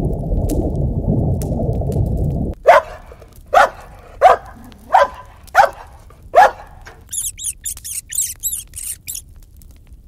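A low rushing noise stops about two and a half seconds in. Then a dog barks six times at an even pace, about one bark every 0.7 seconds. A quick run of about eight high-pitched chirps follows.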